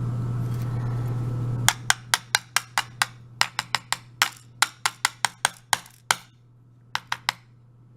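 Sharp, quick clicks of small brass lock pins and parts being knocked out of an Abus 72/40 euro cylinder onto a hard surface, about four a second for several seconds, then three more near the end. A steady low hum runs underneath at first.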